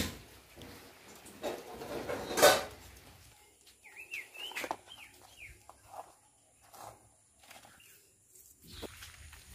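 Rustling handling noise with a knock about two and a half seconds in. Then several short rising-and-falling bird chirps about four to five seconds in, over a faint steady high hum.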